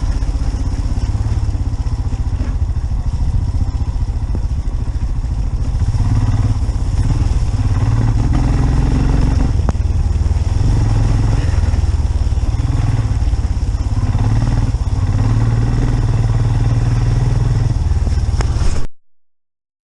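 Motorcycle engine running under way on the move, its pitch rising and falling gently with the throttle, until the sound cuts off suddenly near the end.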